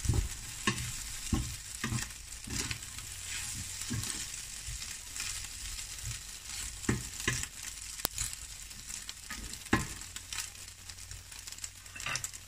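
Diced potatoes and egg sizzling in a nonstick frying pan, a steady hiss, while a spatula is stirred through them, scraping and knocking against the pan in short strokes that come more sparsely later on.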